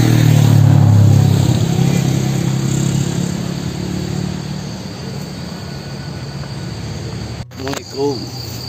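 A motor vehicle's engine drone, loudest about a second in and fading away over the next few seconds, over a steady high buzz of insects. Near the end a man's voice briefly starts.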